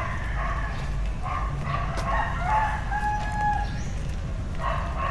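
A rooster crowing once, about two and a half seconds in, with a long held note, over steady outdoor background noise.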